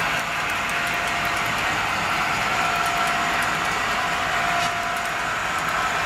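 HO scale model freight train running on the track: a steady motor whine over the rolling of the wheels on the rails, with scattered light ticks.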